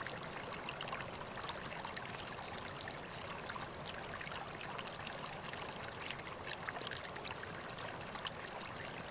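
Small stream of water trickling and splashing steadily, with many little droplet splashes over a constant rush.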